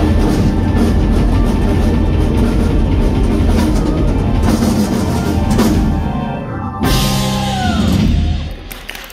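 Live band of drum kit, electric guitar, bass and keyboards playing the closing bars of a rock-pop song. A last chord is struck about two-thirds of the way in, held with a downward slide, and fades out near the end.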